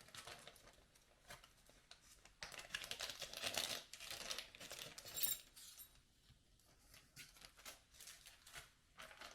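Plastic packaging crinkling and rustling as parts are unwrapped by hand, loudest a few seconds in, with a brief high clink about halfway through.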